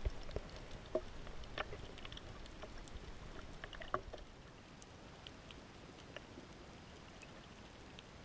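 Water movement heard underwater through a camera's waterproof housing: scattered small pops and clicks, most of them in the first half, then dying down to a faint steady hiss.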